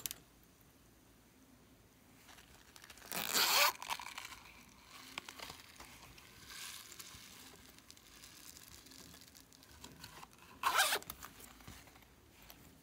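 Zipper on a small pink silicone case being pulled, a short rasping zip about three seconds in and another near the end, with quieter handling rustles between.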